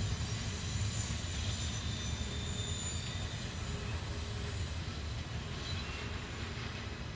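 Double-stack container cars of a freight train rolling away around a curve: a steady low rumble with faint, thin, high wheel squeals drifting above it, slowly fading.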